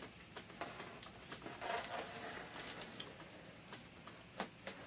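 Faint scratching and small clicks of hands working at packing tape on a styrofoam shipping container, with one sharper click near the end.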